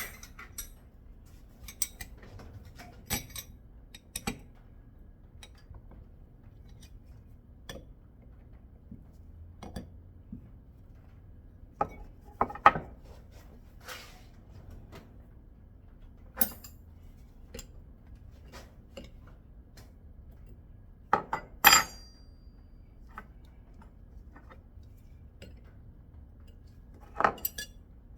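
Metal tools and coilover hardware clinking and knocking as they are handled, in scattered light clicks with a few louder clanks, one of which rings briefly.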